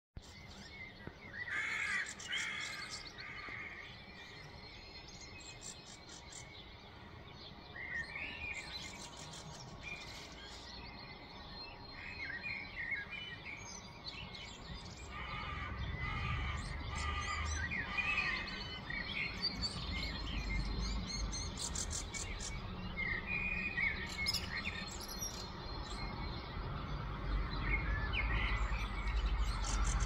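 Songbirds singing in the morning: short, varied phrases and chirps, several overlapping. A low rumble builds underneath from about halfway through.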